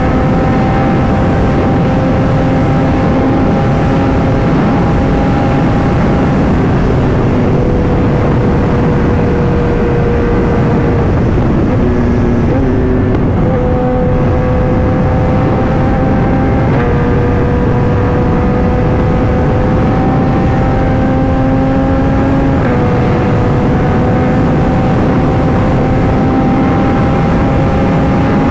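Kawasaki ZX-10R inline-four engine running under way. Its pitch climbs slowly and steps abruptly a few times with gear changes, under heavy wind noise on the rider's microphone.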